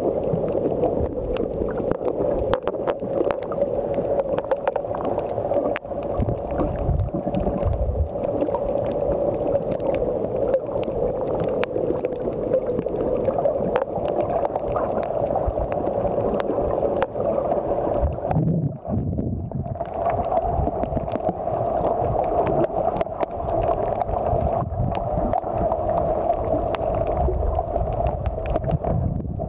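Muffled underwater sound picked up by a camera submerged on a coral reef: a steady rushing hum with frequent faint clicks. It drops out briefly about two-thirds of the way through.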